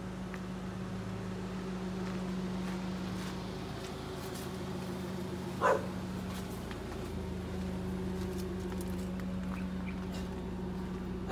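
A dog barks once, briefly, about halfway through, over a steady low hum.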